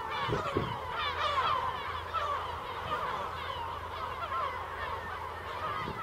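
A large flock of gulls calling, with many short cries overlapping all the time.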